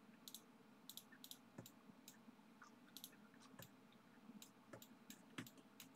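Faint computer mouse clicks, a dozen or so scattered irregularly, some in quick pairs, over near silence.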